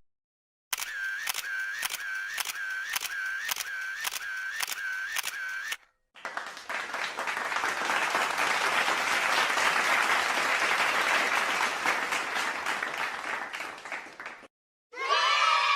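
Two sound effects in turn. First comes a run of sharp clicks, each with a short chirp, about two a second for five seconds, like a camera shutter firing repeatedly. Then comes about eight seconds of dense clapping-like applause that swells and fades out.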